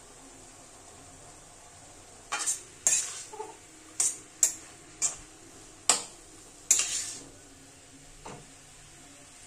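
Long metal spatula scraping and clanking against a metal kadai while stir-frying, about eight sharp strokes in five seconds starting about two seconds in, then a softer one near the end, over a faint steady hiss.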